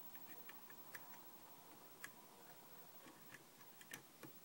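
Faint, irregular small clicks and ticks of a lock pick working the pins of a 5-pin Kwikset lock cylinder under a tension wrench, with a few sharper clicks about two seconds in and near the end.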